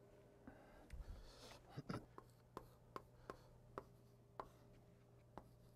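Chalk writing on a blackboard: a dozen or so sharp, irregular taps of the chalk stick hitting the board, with some faint scraping between strokes.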